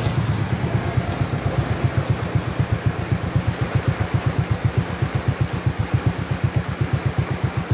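Motorcycle engine idling with a steady low putter, about ten beats a second, over the rush of a shallow stream running over rocks.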